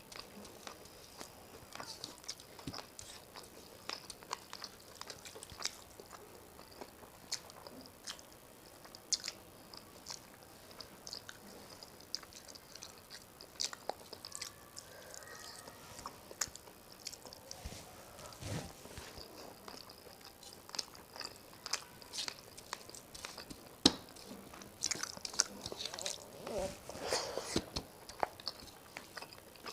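Close-up eating sounds: rice and rui fish curry being chewed, with many short, irregular wet mouth clicks, busier near the end.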